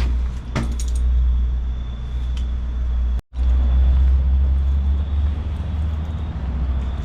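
Steady low rumbling noise, broken by a brief dropout about three seconds in.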